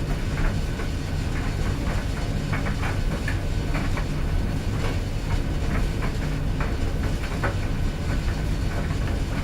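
Clothes dryer running: a steady low rumble from the motor and turning drum, with irregular light clicks and knocks scattered through it.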